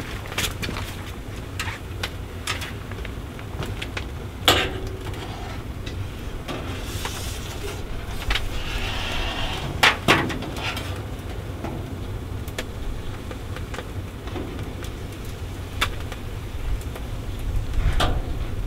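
Maple sap boiling hard in a wood-fired Dominion & Grimm evaporator: a steady low rumble, with scattered knocks and clinks of a strainer against the pans as the foam is skimmed off.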